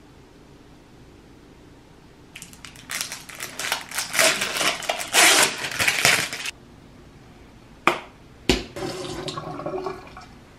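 Water running and splashing at a bathroom sink for about four seconds, cutting off abruptly. Then two sharp knocks, and softer splashing as the face is washed.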